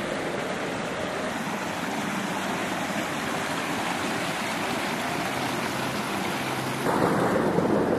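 Small mountain stream running over rocks, a steady rush of water that gets louder about seven seconds in.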